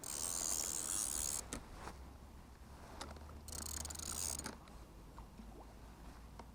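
Fishing reel's drag ratcheting in two bursts, one of about a second and a half and a shorter one of about a second, as a hooked fish pulls line off the reel.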